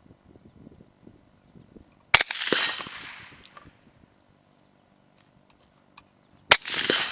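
Two rifle shots from an AR-15 firing supersonic rounds, about four seconds apart. Each sharp crack is followed by a ringing echo that dies away over about a second.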